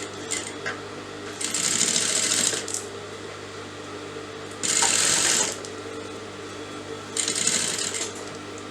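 Electric sewing machine stitching lace onto a blouse in three short runs of about a second each, over a steady low hum.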